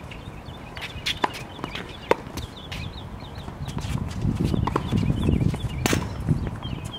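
Tennis balls struck by rackets and bouncing on a hard court: a few sharp knocks, the loudest near the end, with short high chirps in between and a low rumble rising in the second half.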